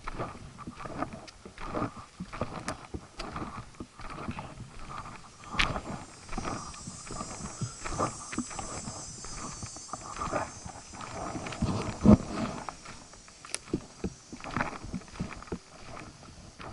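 Footsteps on a hiking trail: an uneven run of scuffs and knocks, with one louder knock about twelve seconds in.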